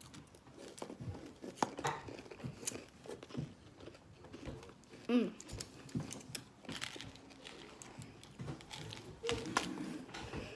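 A plastic M&M's tube with a flip-top cap being handled and candies tipped out into a hand: scattered small clicks and rustles.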